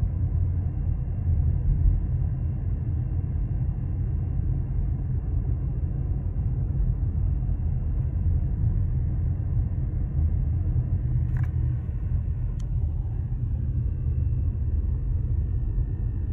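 Steady low rumble of a new Peugeot 2008 being driven, heard inside the cabin, with a short click about eleven seconds in and a sharp tick a second later. This is the rpm range where the car gives a 'da-da-da' rattle from behind the front passenger glovebox, a fault on the brand-new car.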